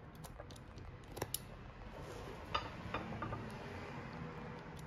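Utility knife blade cutting away an old plastic storm welt from a boot's sole edge, with a few sharp, irregularly spaced clicks and snaps as the blade bites and the strip is pulled free.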